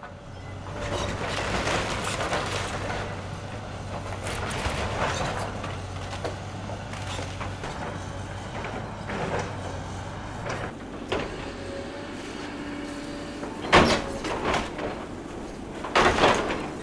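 Hydraulic excavator tearing down a wood-framed building: the diesel engine runs with a steady hum while timber and debris crunch, splinter and scrape. Two loud crashes come near the end.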